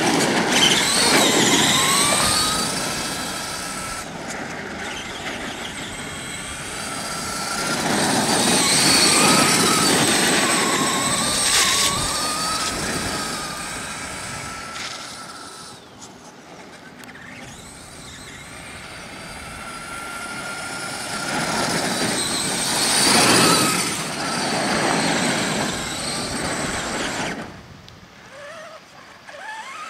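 Traxxas RC monster truck driving over dirt: a motor whine that rises and falls in pitch with the throttle over the noise of the tyres. It swells loudly three times as the truck passes close, and fades between.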